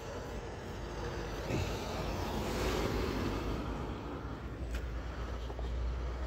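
A vehicle passing by: a rushing noise that swells to a peak about halfway through and then fades, with a low steady rumble coming in near the end.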